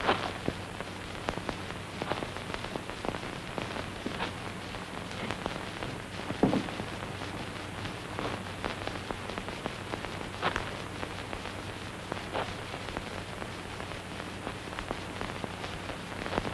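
Hiss and crackle of an old optical film soundtrack over a low steady hum, broken by a few faint knocks.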